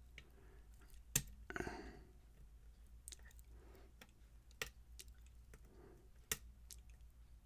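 Lock pick and tension wrench working the pins of a pin-tumbler challenge lock: scattered sharp metallic clicks, the loudest about a second in, followed by a short scraping rattle.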